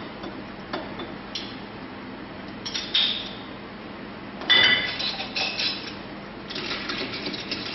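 Glassware and ice clinking as a spritz is mixed in a glass: a few light knocks, then a louder run of ringing clinks about halfway through.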